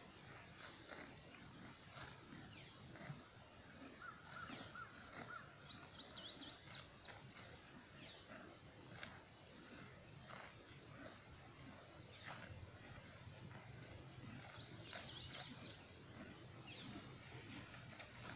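Pasture ambience: a steady high-pitched insect drone, with a small bird's quick run of chirps twice, about five seconds in and again near fifteen seconds. Soft crunches of horses tearing and chewing grass come through close by.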